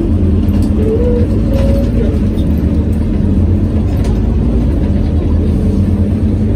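Inside a Scania OmniCity city bus under way: the ventilation fan drones loudly and steadily over a low rumble from the running bus, drowning out the engine.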